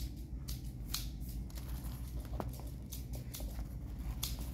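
Irregular light clicks and rustles of hands handling a pair of new canvas slip-on shoes, over a steady low hum.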